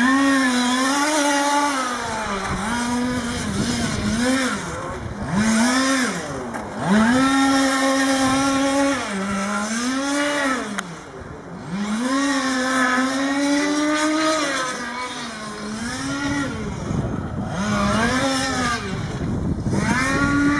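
1/5-scale radio-controlled car's small two-stroke petrol engine at racing speed, its high-pitched buzz climbing as it accelerates and falling away as it lifts off for the corners, every second or two.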